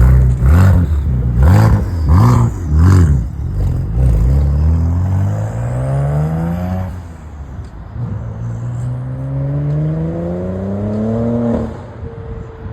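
2008 BMW 335i's twin-turbo 3.0-litre straight-six revved in four quick blips, then accelerating hard: the engine pitch climbs, drops sharply about seven seconds in and climbs again, then falls away near the end. The engine has freshly replaced injectors after a misfire.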